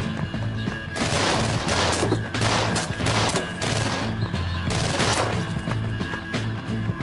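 Volleys of rapid gunfire in a shootout, densest from about one second in until past five seconds, over a background music score with a steady low pulse.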